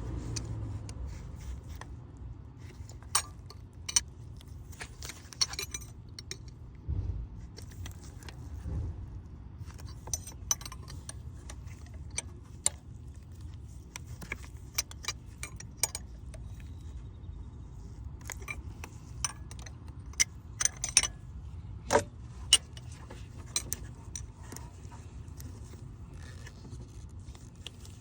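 Scattered sharp metallic clicks and clinks, irregular and sometimes in small clusters, from a hand tool working on metal as the coolant temperature sensor is turned a little at a time until tight. A steady low hum sits underneath.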